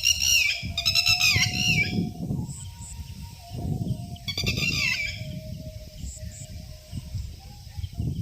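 A bird calling: three rough, multi-toned calls, each dipping in pitch at its end, the second the longest, heard over a constant low rumble.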